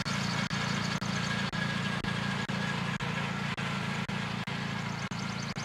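Riding lawnmower engine running steadily at a constant speed, a low even drone with brief dips about twice a second.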